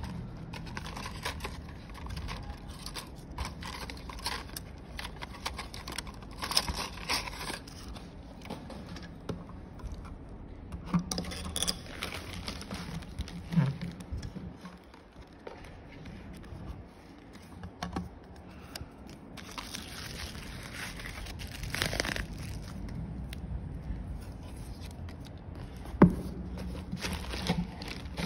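Unpacking by hand: plastic wrapping, bubble wrap and paper crinkling and rustling, with scraping and small clicks as parts and packaging are handled and set down, and one sharp tap near the end.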